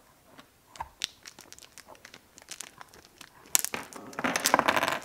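Plastic wrapping on a robot's battery pack crinkling as it is opened: a few light clicks of handling, then loud, dense crinkling from about three and a half seconds in.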